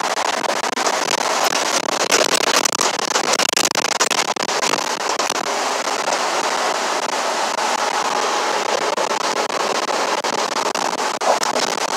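Road and tyre noise inside a moving vehicle driving across a steel bridge: a steady rush with many small crackles and clicks over it.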